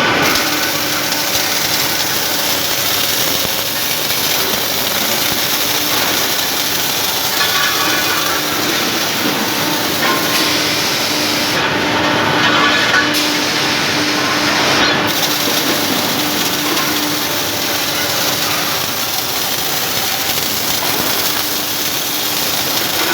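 Welding-shop machinery running: a loud, continuous rushing noise with a faint steady hum that comes and goes.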